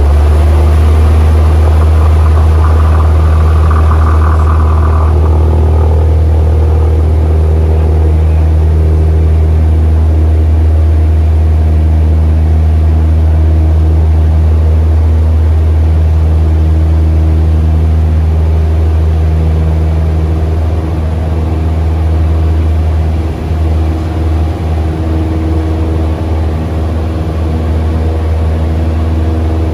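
Cessna 172's piston engine and propeller at full takeoff power, heard inside the cockpit as a loud, steady low drone. The drone wavers a little from about twenty seconds in.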